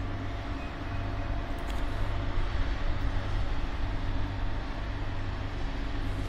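2EL4 two-section electric locomotive pulling a freight train slowly away from a standstill: a steady low hum and drone from its running equipment.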